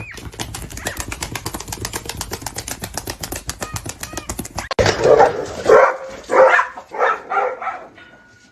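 A fast, even run of clicks lasts about four seconds. A dog then barks several times, loudly.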